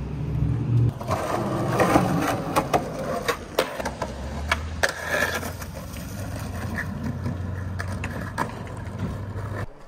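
Skateboard riding over pavement: a cluster of sharp clacks and knocks from the board in the first half, then a steady rumble of the wheels rolling that stops suddenly near the end.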